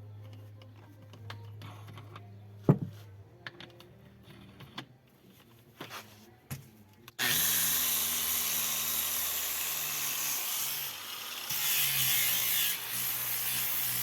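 Scattered clicks and a sharp knock of handling, then, about halfway through, an angle grinder fitted with a polishing pad starts working the granite with a loud, steady hiss and whir. This is the polishing stage of the finish.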